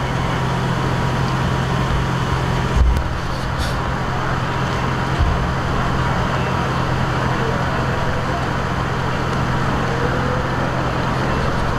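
Steady street noise at night, with a constant low hum running underneath. There is one brief thump about three seconds in.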